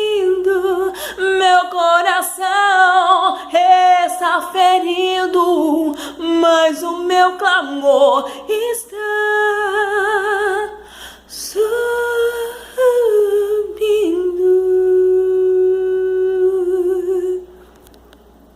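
A woman singing a Portuguese worship song unaccompanied, in ornate runs with vibrato and long held notes, the last held note stopping near the end.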